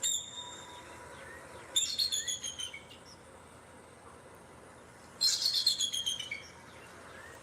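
Recorded bald eagle calls played back: a short call, then two series of rapid, high chittering notes, each about a second long and about three and a half seconds apart.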